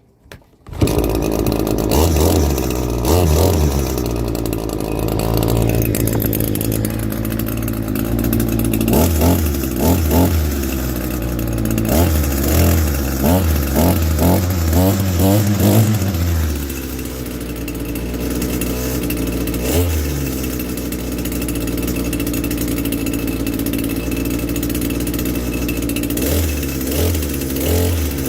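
Echo GT-225 string trimmer's small two-stroke engine starts up about a second in and runs, revved up in repeated bursts with the line head spinning and dropping back to idle in between.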